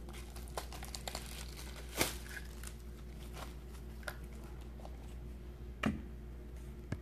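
Hands handling Blu-ray box set packaging: crinkling and rustling with a few light knocks, the sharpest about two seconds in and again near six seconds in.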